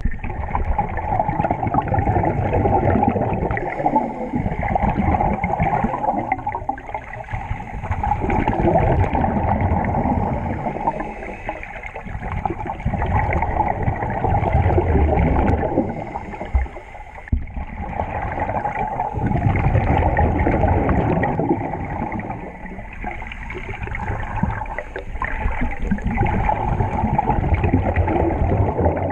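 Scuba divers' regulator breathing, heard underwater: exhaled bubbles gurgling in surges every few seconds.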